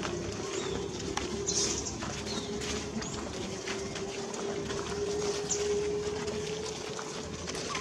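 Outdoor ambience: a steady low hum, with a few short bird chirps above it and scattered light clicks and rustles.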